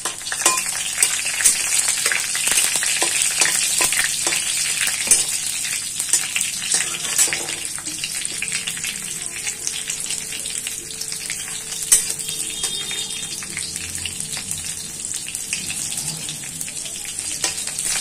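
Green chillies and whole spices sizzling and crackling in hot oil in a metal kadhai while a flat spatula stirs them. The sizzle jumps up right at the start and slowly eases.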